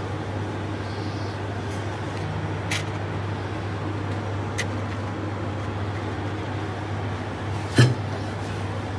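Steady low machine hum, like a running kitchen fan or hob, with three short clicks; the last, near the end, is the loudest.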